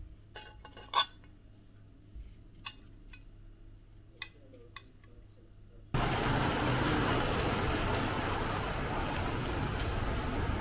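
A few sharp clicks of cutlery against a china plate, the loudest about a second in. About six seconds in the sound cuts abruptly to a steady, even hiss of outdoor noise.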